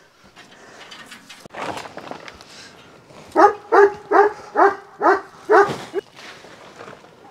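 A dog barking six times in a quick, even series, about two barks a second.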